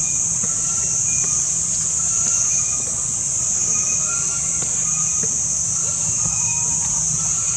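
Outdoor forest soundscape dominated by a steady, high-pitched insect drone, with short repeated chirps above a steady low rumble.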